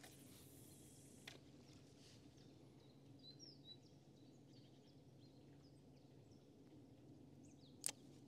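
Near silence: faint outdoor ambience with a few faint bird chirps, broken by two sharp clicks, a small one about a second in and a louder one near the end.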